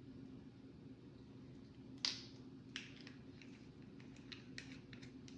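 Faint clicks and taps of kitchen utensils against a bowl or container: one sharper tap about two seconds in, then a string of lighter clicks, over a low steady hum.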